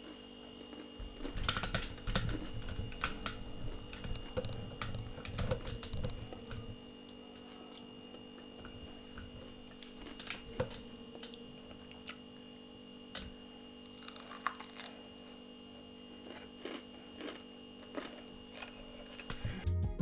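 A person eating crispy fried potato hash browns: irregular crunches and chewing, denser in the first half, over a steady low hum.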